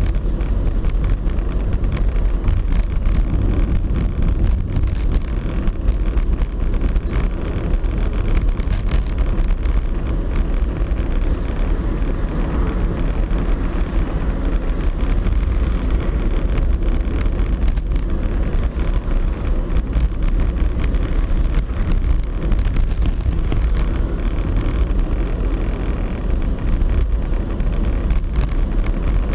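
Car driving at a steady pace, heard from inside the cabin: even engine and road noise with a low rumble.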